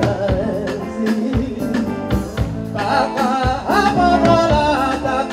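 A song playing: a singing voice carrying a wavering melody over instrumental backing, with a steady beat of drum strikes about twice a second.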